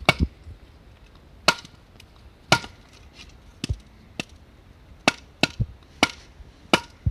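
Firewood being split: about a dozen sharp knocks of a striking tool on wood at uneven intervals, some leaving a brief ringing tone.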